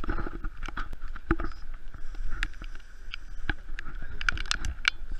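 Irregular patter of sharp taps, like raindrops striking close to the microphone, over a steady low rumble and a faint steady hum.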